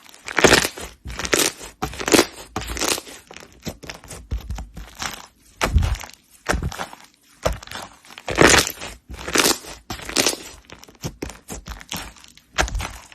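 Slime being pressed and squeezed by hand: an irregular string of short, sharp handling sounds, the bigger ones about a second apart with smaller ones in between.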